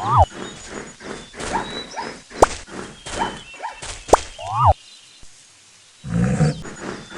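Animal calls: two short cries that rise and fall in pitch, one at the start and one about four and a half seconds in, among repeated sharp cracks and faint high chirps. After a brief hush, a lower, fuller call comes about six seconds in.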